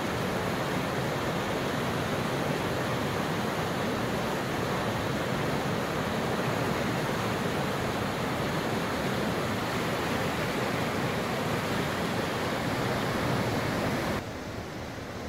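River water rushing through the narrow spillway gap of a small hydropower weir, a steady loud rush of white water. About fourteen seconds in the sound drops suddenly to a quieter, softer rush.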